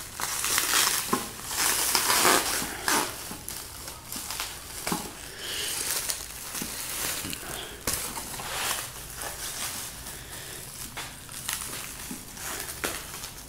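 Clear plastic wrapping crinkling and crumpling in irregular bursts as hands pull it off and bunch it up. It is loudest over the first three seconds.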